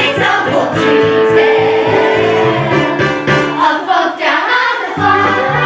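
Several voices singing a song together over instrumental accompaniment with a steady beat. One long held note comes early on, and the bass and beat drop out briefly about four seconds in before coming back.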